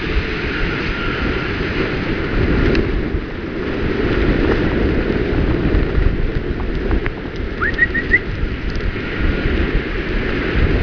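Steady low rumble of freeway traffic mixed with wind buffeting the microphone. About eight seconds in, a bird gives a short call: one rising note, then three quick chirps.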